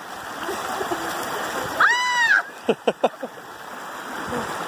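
Shallow creek water running over rocks, with sticks dipping and splashing in it. About two seconds in, a person gives a short high squeal that rises and then falls, followed by a few brief sharp sounds.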